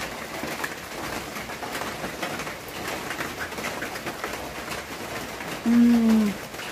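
A woman's closed-mouth "mmm" of approval while tasting food, a single low hum of under a second near the end that sags slightly in pitch. Before it there is only faint background noise with light clicks.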